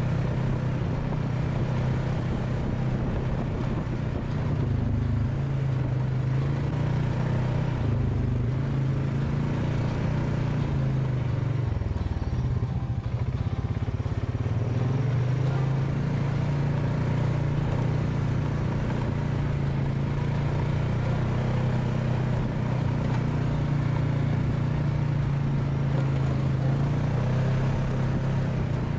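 ATV engine running steadily while riding along the trail. About twelve seconds in its pitch dips briefly as the throttle eases, then climbs back to a steady run.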